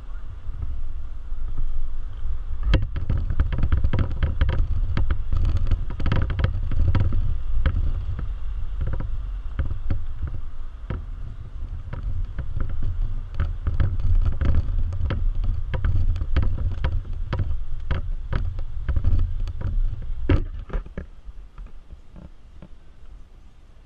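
Jeep Wrangler JL crawling over a rocky off-road trail: a low drivetrain and engine rumble with many knocks and clunks from rocks under the tyres and suspension, easing off near the end after one last loud knock.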